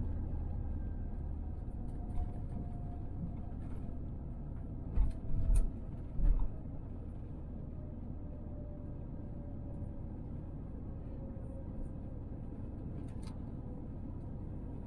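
Cabin noise inside an Airbus A350 around landing: a steady low rumble with a faint whine slowly falling in pitch, and three short thumps about five to six and a half seconds in.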